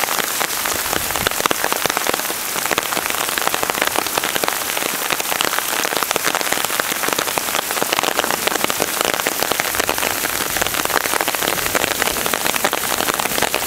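Rain falling steadily: a dense, even patter of drops.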